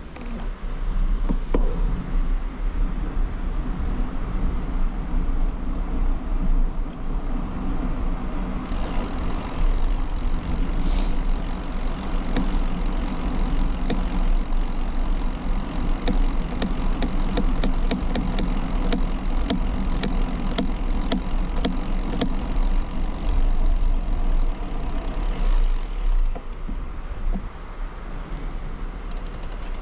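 Bicycle riding along a paved path, heard from a handlebar-mounted camera: steady wind buffeting on the microphone, which has no wind reduction, with tyre and road rumble. Through the middle a run of evenly spaced light ticks comes from the moving bike.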